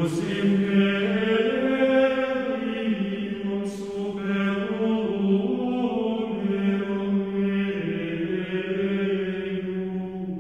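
Slow liturgical chant sung in a single melodic line, long held notes moving stepwise up and down.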